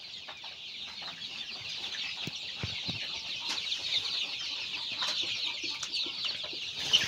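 A large flock of 40-day-old Golden Misri chicks peeping and cheeping all at once, countless short high calls overlapping into a continuous chatter that grows a little louder toward the end.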